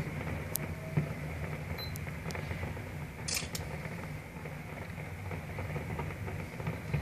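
Fireworks display: a steady low rumble, with two dull bangs within the first second and a short hiss about three seconds in.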